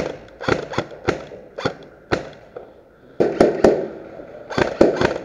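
A series of sharp knocks and clacks with a short echo, about two a second at first, then a quick cluster, then coming faster near the end.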